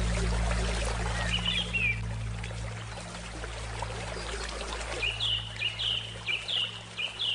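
Flowing river water with birdsong over a low held musical drone. A bird gives a brief phrase a little over a second in, then a run of about six quick falling chirps, roughly two a second, from about five seconds in.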